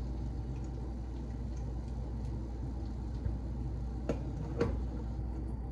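Light clicks and two sharper knocks, about four and four and a half seconds in, from kitchenware being handled at a counter, over a steady low hum.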